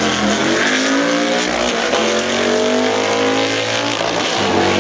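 Drag-racing cars, one of them an Ultima GTR with a Chevrolet V8, accelerating hard down the strip. The engine note climbs in pitch and drops back at gear changes about one and a half and four and a half seconds in.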